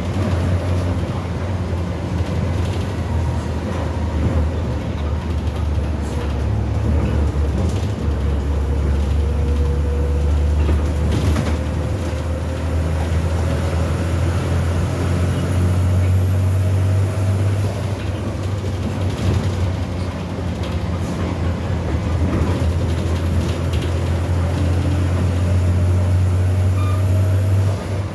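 MWM TCA 6.10 six-cylinder turbo engine, converted to run on natural gas, running in a Volksbus 17.210 OD city bus. It makes a deep, steady drone, with a fainter whine that slowly rises in pitch over the middle.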